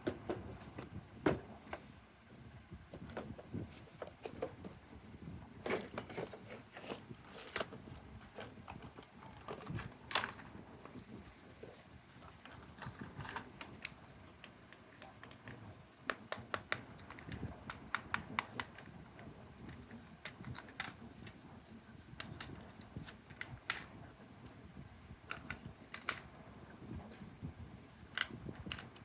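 Irregular light clicks and taps, with a faint rustle, of small plastic objects being handled, such as toy cars and their packaging being unboxed.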